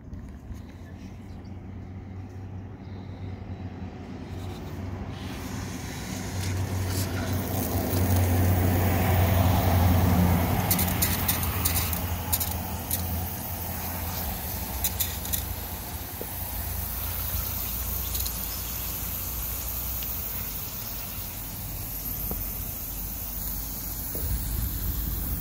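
Pop-up spray sprinkler head running, water hissing from its nozzle, louder over the first several seconds as the water comes on and then steady, with a few sharp clicks. It is the test of the head just rebuilt on flexible Marlex swing fittings.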